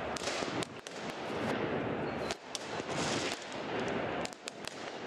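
Noise of a stadium crowd on the pitch, with firecrackers going off again and again as sharp bangs.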